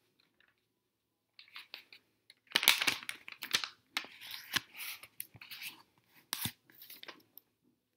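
A magazine page being folded in half and creased by hand: paper rustling and crinkling, loudest about two and a half to three and a half seconds in, then scattered crackles as the fold is pressed flat.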